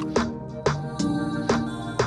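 Background music: an electronic track with a steady beat of about two drum hits a second over held notes.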